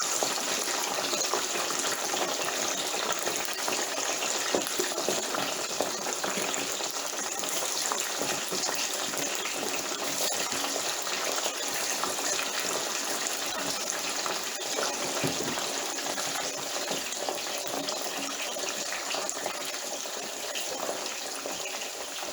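French fries deep-frying in hot grease: a steady, dense sizzle with fine crackling.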